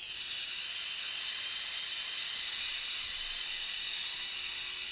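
CO2 gas hissing out of a leaking 1964 Crosman 600 semi-automatic pellet pistol: a steady hiss that slowly fades as the charge escapes.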